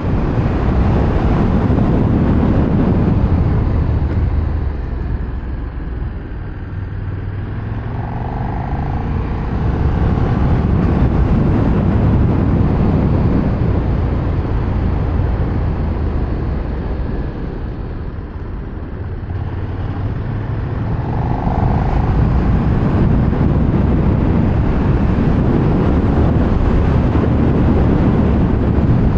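KTM 1390 Super Duke R's V-twin engine running under way, with wind noise over the microphone. The engine note eases off twice, about six and eighteen seconds in, then picks up again.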